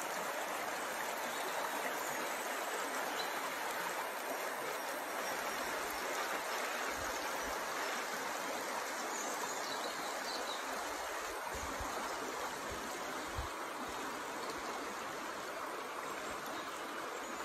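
Shallow river rushing steadily over rocks and riffles. A few faint low thumps sound now and then.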